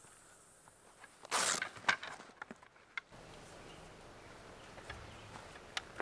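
Wooden knocks and clatter from a folding wooden camp table being set up, its roll-up slatted top laid onto the X-frame. There is a cluster of sharp knocks in the first half, then only a few scattered clicks.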